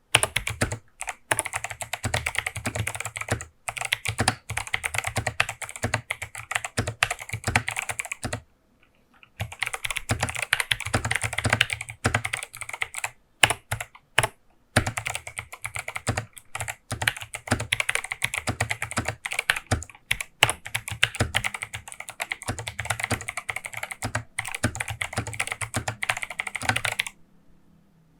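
Fast typing on an 8BitDo Retro Mechanical Keyboard C64 Edition with clicky Kailh Box White V2 switches: a dense, irregular run of key clicks. It pauses briefly about nine seconds in and stops about a second before the end.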